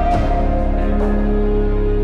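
Background music of held, sustained chords, with a chord change about a second in.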